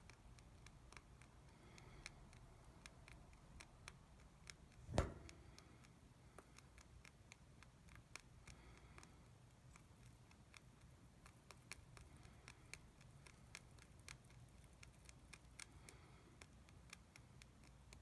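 A young rabbit chewing hay: faint, quick, irregular crunching clicks, with one louder short thump about five seconds in.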